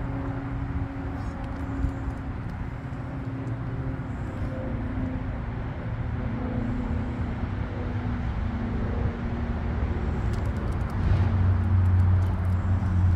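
A motor vehicle engine running steadily with a low hum, growing louder into a deeper rumble near the end.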